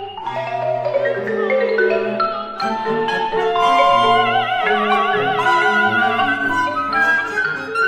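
Chamber ensemble of flute, clarinet, violin, cello and marimba playing contemporary classical music. About halfway through, a long high note is held with wide vibrato over the other parts.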